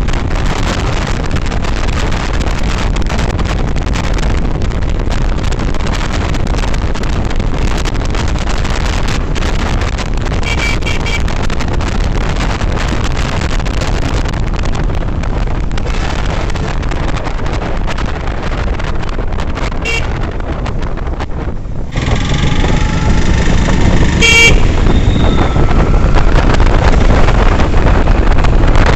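Wind rushing over the microphone and road noise from a motorcycle ride, with short vehicle horn toots three times. The noise gets louder about three quarters of the way through.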